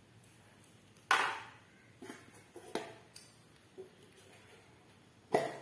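Hard objects being handled and set down: a sharp clack about a second in, a few lighter knocks after it, and another sharp clack near the end.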